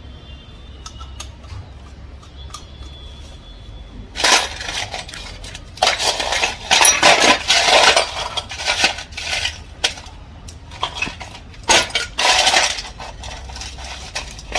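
Metal tools and engine parts clinking and rattling in several bursts from about four seconds in, as a new cylinder head and its bolts are fitted onto the engine.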